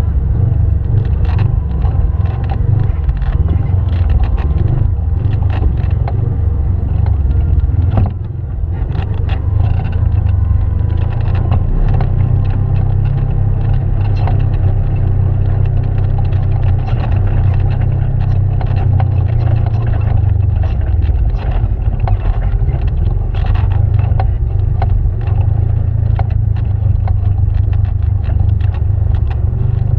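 Side-by-side UTV driving over a rough dirt trail: a steady low engine rumble with frequent short knocks and rattles from the bumpy ground. The rumble drops briefly about eight seconds in, then picks up again.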